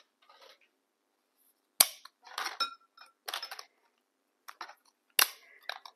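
Dry lasagna noodles being snapped by hand to fit the pan: two sharp cracks, about two seconds in and near the end, with smaller crackles and brief clinks between them.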